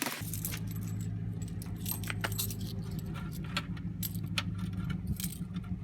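Metallic jingling and clinking, many small irregular clicks over a steady low hum.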